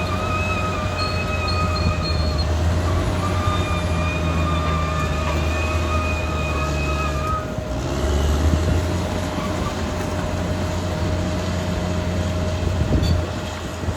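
Caterpillar D6R XL bulldozer's diesel engine running steadily with its steel tracks squealing. The high squeal breaks off briefly about three seconds in and stops about halfway through, while the engine runs on.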